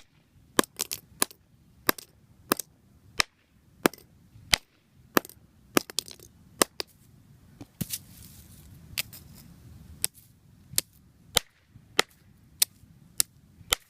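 A fidget spinner being struck hard over and over to break it apart: a steady run of sharp knocks, roughly one every half second.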